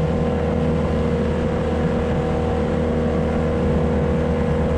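Dinghy outboard motor running steadily, with a constant droning tone and a steady high whine over it.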